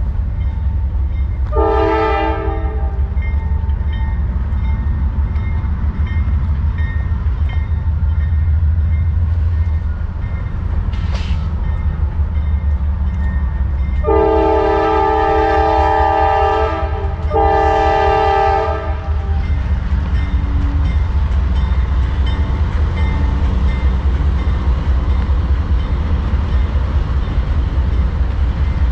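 Norfolk Southern freight train's diesel locomotive air horn: a short blast about two seconds in, then a long blast and a second blast close behind it around the middle. Under the horn runs the steady low rumble of the train.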